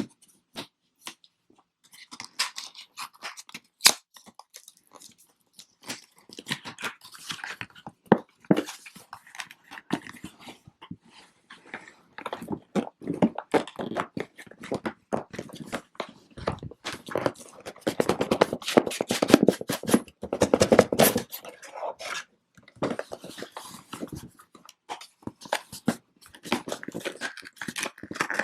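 Hands unpacking a boxed microphone: cardboard and packaging rustling and scraping, with many sharp clicks and knocks, busiest in the second half.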